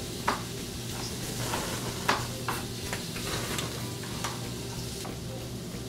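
Chef's knife slicing green chilies on a plastic cutting board, the blade tapping the board at irregular intervals about eight times, over a steady sizzle of pork belly grilling.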